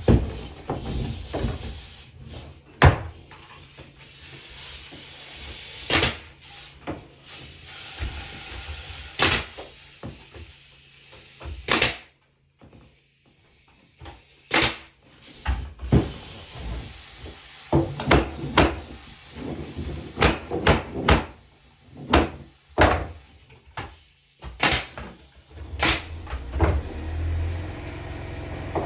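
A series of irregular knocks and clunks, some sharp, with stretches of scraping noise between them, as of work being done with wood or tools.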